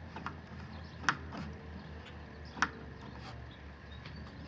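A few faint, sharp clicks over a low steady hum, the two clearest about a second apart near the middle.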